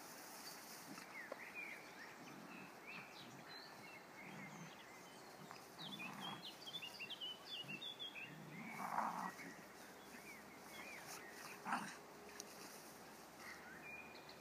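Two dogs playing in tall grass, heard faintly from a distance, with two short, louder barks about nine and twelve seconds in. Small birds chirp in the background.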